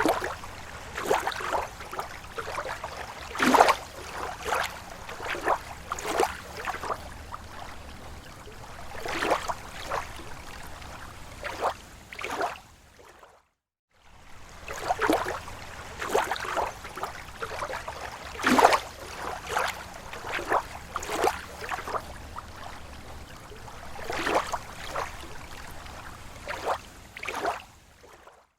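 Small waves lapping against a lake shore: irregular soft splashes and gurgles, a few to each second, over a low steady wash. The sound cuts out briefly about halfway through, then the same stretch of lapping starts over.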